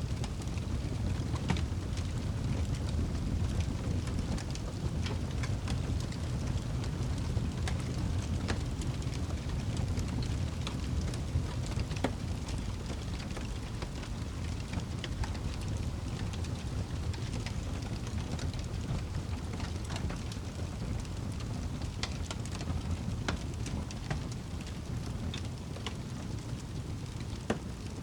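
Wood fire burning in a fireplace: a steady low rumble of flames with scattered sharp crackles and pops from the logs.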